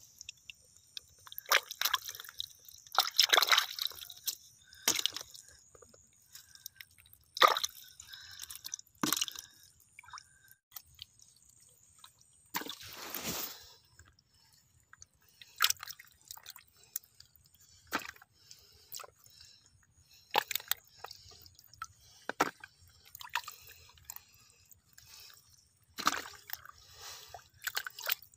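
A hand plunging and groping in a water-filled mud hole: irregular wet squelches, splashes and sloshes of muddy water, coming in uneven bursts with short pauses between them and a couple of longer sloshes.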